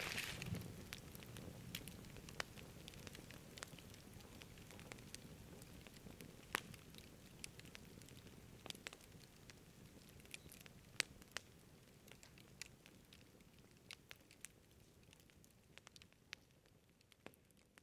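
Wood campfire crackling, with scattered sharp pops from the burning logs, faint and fading out gradually.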